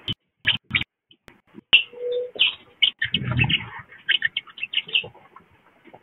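Several wild birds calling: many short, sharp chips and brief high notes, with one short low coo of a dove about two seconds in. A soft low thump comes just after three seconds.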